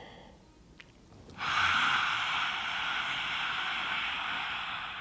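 A woman's lion's breath from yoga: a long, forceful breathy 'haaa' exhaled through a wide-open mouth with the tongue stretched out. It starts about a second and a half in and is held steady for about four seconds.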